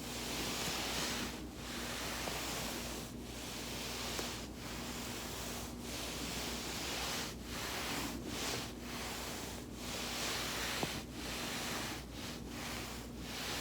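A foam roller rolling back and forth under a body's weight: a rhythmic swishing rub that swells and breaks off about every second and a half, over a faint steady hum.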